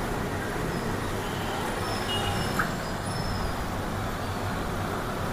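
Steady background rumble of road traffic, with faint short high tones about two seconds in.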